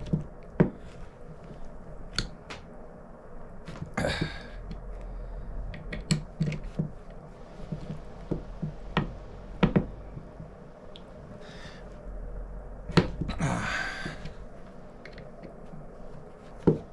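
Scattered light clicks and knocks of small metal engine parts being handled and set down on a workbench, with a couple of brief rustles, over a low steady room hum.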